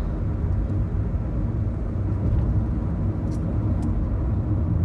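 Car interior road noise while driving: a steady low rumble of the engine and tyres on asphalt, heard from inside the cabin.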